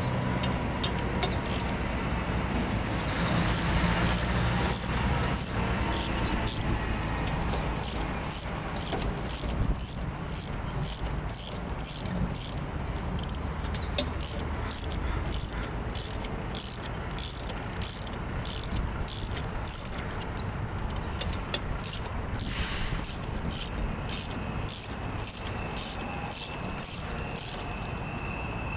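Socket ratchet wrench clicking in a steady run, about two clicks a second, as bolts on the injector housing of a Godwin Dri-Prime pump are loosened for removal. A low steady rumble lies underneath.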